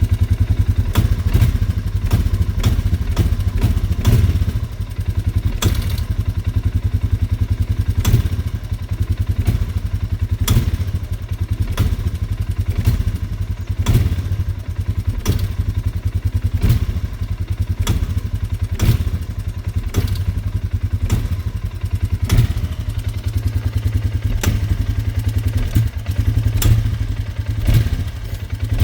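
Polaris Sportsman 450 HO ATV's single-cylinder engine running at low speed with the throttle feathered, with sharp knocks and clacks at irregular intervals, about one or two a second: the odd noise that shows up when feathering the throttle to go slowly.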